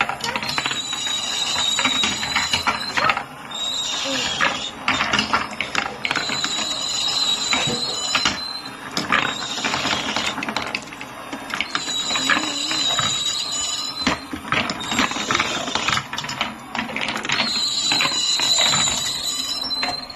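Glass marbles rolling and clacking down a wooden marble run, a dense run of quick clicks and rattles. A high ringing tone comes in about every five to six seconds and lasts roughly two seconds each time.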